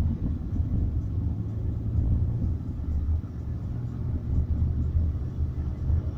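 A car's engine and road noise heard from inside the cabin while driving, a steady low rumble.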